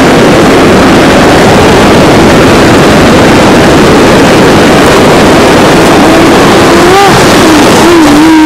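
Loud, steady rushing noise of surf and wind on the microphone, with no break. A faint voice calls out briefly near the end.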